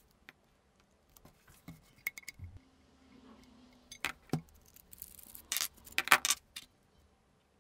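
Small metal air fittings clicking and clinking against a plastic-bodied air regulator and filter as they are handled and taken apart, with louder clusters of clicks about four seconds in and again around six seconds in.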